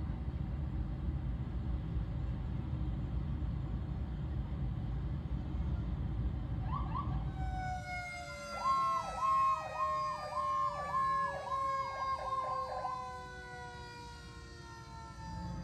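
Fire ladder truck sounding its sirens as it drives by: a siren tone sliding slowly down in pitch, joined a second later by a rapid up-and-down siren pulse that repeats about one and a half times a second for some four seconds. Low engine rumble of the passing parade vehicles fills the first half.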